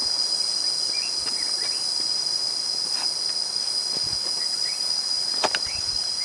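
Steady, shrill insect chorus droning without a break, with a few faint short chirps over it and one sharp click about five and a half seconds in.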